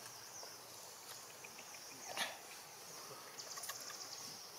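Insects buzzing steadily, with a denser trilling stretch late on, and a single short animal squeak about two seconds in.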